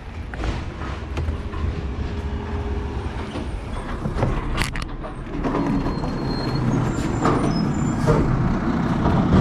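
Garbage truck's diesel engine running close by, getting louder from about halfway through as it approaches, with a brief sharp sound a little before the midpoint.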